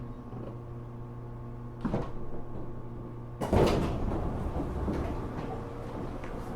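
JR Kyushu 415 series 1500 sub-series electric train car standing with a steady electrical hum, a knock about two seconds in, then a sudden louder clatter about three and a half seconds in that fades over a second, like the passenger doors sliding.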